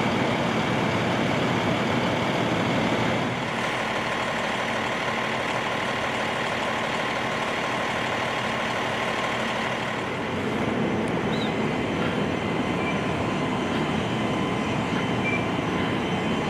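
Steady drone of engines running at a fire scene, of the kind made by idling fire apparatus and motor-driven equipment. It dips slightly about three seconds in and picks up again near ten seconds.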